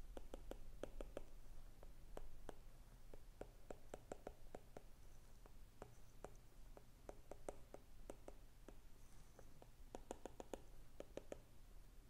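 Faint, irregular taps and light scratches of a stylus writing on a tablet's glass screen, with a denser cluster of taps about ten seconds in.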